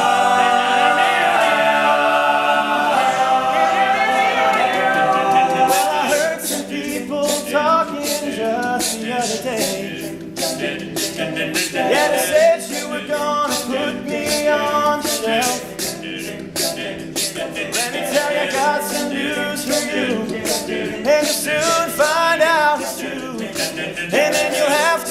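Male a cappella group singing the song's wordless intro in sustained, stacked chords, with a vocal-percussion beat joining about six seconds in.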